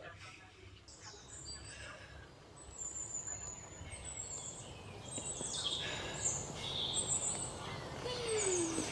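A woman hissing and blowing sharp, whistly breaths through her lips against the burn of ghost-pepper noodles, growing louder after about five seconds and ending in a short falling moan.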